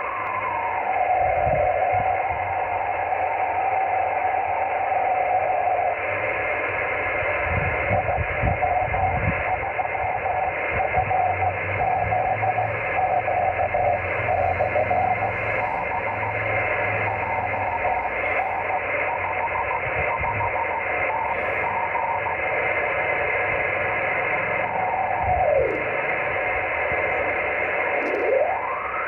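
Receiver audio of a 24 GHz amateur radio beacon heard via rain scatter: a beat tone around 700 Hz over steady hiss. The tone wavers and turns rough and fluttery, as rain-scattered signals do. Its pitch slides down at the start, then near the end dips low twice and rises sharply.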